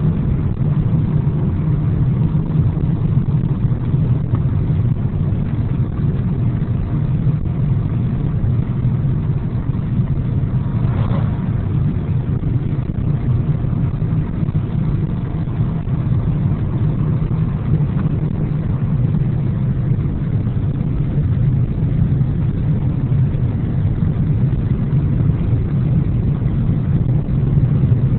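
Steady engine and tyre noise inside the cabin of a moving car, a constant low hum.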